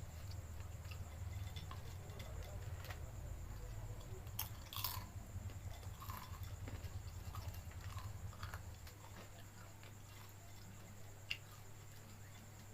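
Close-miked chewing and mouth sounds of someone eating fried noodles: scattered soft smacks and clicks, a few louder ones about halfway through, over a low steady hum.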